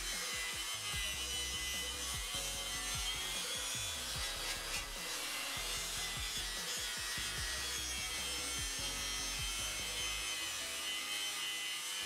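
Abrasive scrubbing and scraping on bare steel flat bar as it is cleaned before welding, in steady irregular strokes, with background music.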